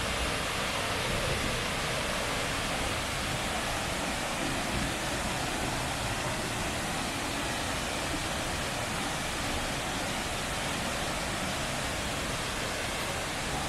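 A waterfall's water rushing steadily, an even, unbroken noise.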